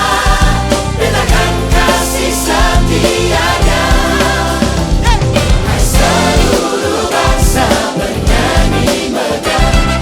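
Live Christian worship song: a choir singing over a full band of drums, bass, keyboards, guitars and horns, with a steady beat.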